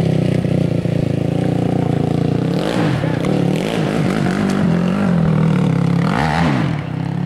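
Sport ATV engine running with a steady drone, its revs swooping up and down twice as the quad climbs a steep gravel hill.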